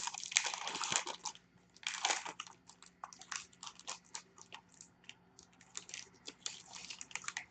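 Sealed trading-card packaging being torn open and the cards handled: a run of short, irregular crinkles and rustles.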